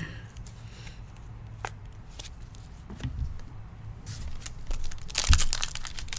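Trading card pack being handled and torn open: a few light clicks and rustles, then from about five seconds in a loud burst of crinkling and tearing of the pack's wrapper.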